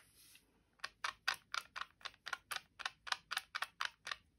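Round watercolour brush scrubbing back and forth in a pan of dry watercolour in a plastic palette, working up pigment. It makes a faint, regular run of short scratchy strokes, about four a second, starting about a second in.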